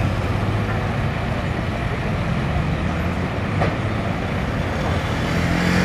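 Steady road-traffic and engine noise: a low engine hum over a constant haze of passing vehicles, swelling slightly near the end as a vehicle goes by.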